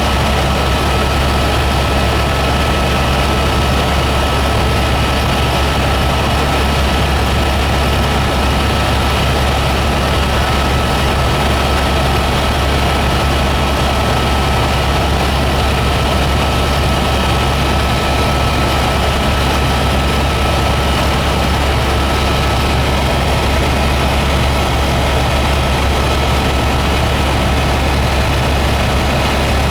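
Helicopter in flight, heard from aboard: a loud, steady low drone from the engine and rotors with a thin, steady high whine over it.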